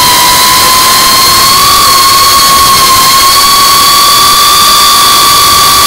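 GEPRC CineLog35 3.5-inch FPV drone's motors and propellers whining at a steady high pitch in cruising flight, rising slightly in pitch, over a constant rush of wind noise on the onboard camera.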